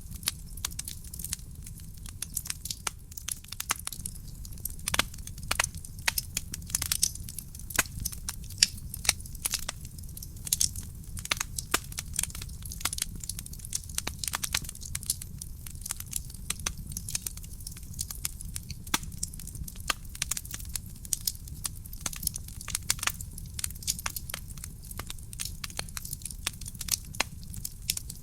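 Burning firewood crackling in a fireplace: many sharp, irregular pops and snaps over a steady low rumble of the flames.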